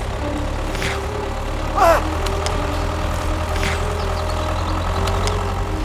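Engine idling steadily with a low hum, and a short rising squeal about two seconds in.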